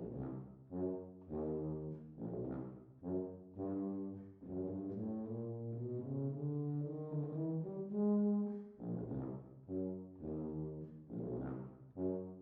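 Unaccompanied low brass instrument playing a solo: short separate notes in quick groups, then a smoother run rising to a loud held note about eight seconds in, before the short detached notes resume.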